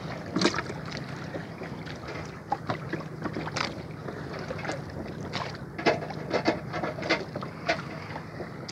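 Wet squelching, slapping and splashing of freshly caught octopuses being lifted and handled in a plastic tub of seawater, as irregular short clicks and smacks that come thickest in the second half. A steady low hum runs underneath.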